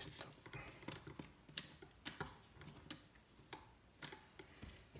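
Faint, irregular small clicks and taps of wires and connectors being handled and fitted while wiring up a voltage regulator.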